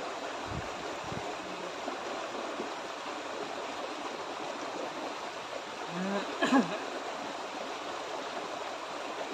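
Small stream rushing steadily over a low rocky cascade. A couple of low bumps come near the start, and a man's short vocal sound comes about six and a half seconds in.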